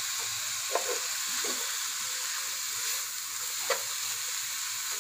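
Mirepoix of grated carrot, diced onion and celery sizzling steadily in olive oil in a pot, being sautéd until soft, with a few light clinks and scrapes of a metal spoon stirring it.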